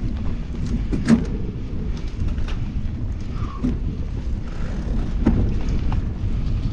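Mountain bike riding over a rough dirt singletrack, heard from a handlebar-mounted camera: wind buffeting the microphone and tyres rumbling on the dirt, with clattering knocks from the bike over bumps, the sharpest about a second in.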